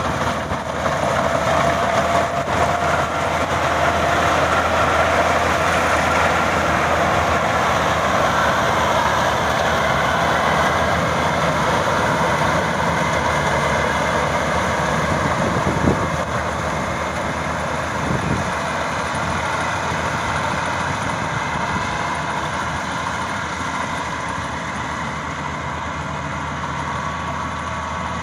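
Maxxi Bimo 102 combine harvester running steadily: dense engine and machinery noise with a faint whine, and a single sharp knock about halfway through.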